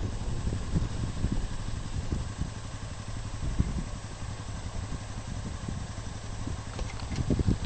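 ATV engine running steadily at low speed as it tows a trailer over snow.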